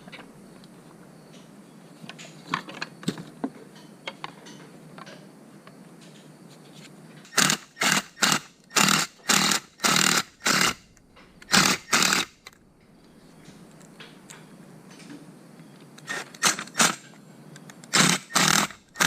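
A small power tool run in short bursts while fitting the wrap handle: a few light clicks, then about ten quick bursts in a row, a pause, and a few more near the end.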